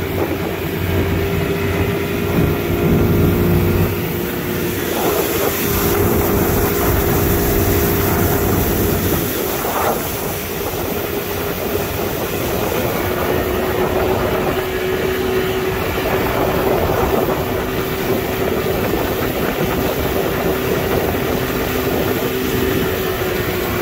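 Motorboat engine running steadily while the boat is under way, a constant drone under a rush of water and wind noise.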